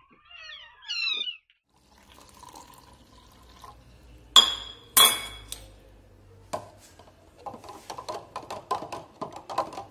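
A metal spoon stirring milk in a plastic jar. It clinks sharply twice a little after four seconds in, then rattles quickly against the jar near the end. Newborn kittens meow briefly at the start.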